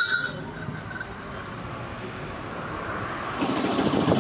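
Motorcycle riding along a road, heard as a steady rush of engine, wind and road noise that gets louder and rougher about three and a half seconds in.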